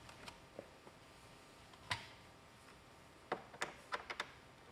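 Faint clicks and taps of hand work on a car's plastic dashboard trim, a screwdriver at the gauge-cluster bezel: a single click about two seconds in, then a quick run of several near the end.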